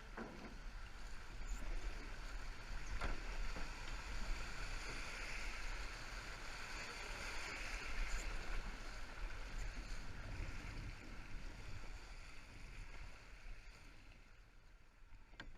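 River water splashing and rushing around a canoe as it is paddled, over a steady low rumble of wind on the microphone. A single knock comes about three seconds in.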